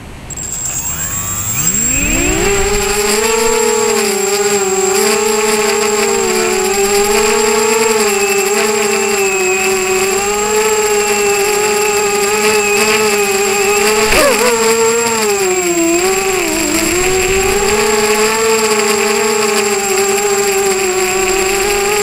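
ZMR250 mini quadcopter's four DYS 1806 2300KV brushless motors and propellers spool up from rest, rising in pitch over the first two seconds. They settle into a steady, high-pitched buzzing whine in flight. About two-thirds through, the whine jumps up briefly and then dips twice as the throttle changes.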